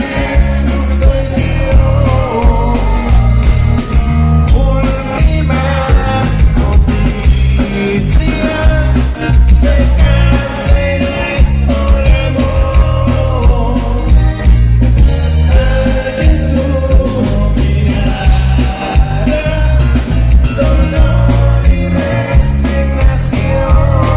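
Live norteño band playing a song with singing over accordion, guitars, bass, congas and drum kit, with a steady pulsing beat.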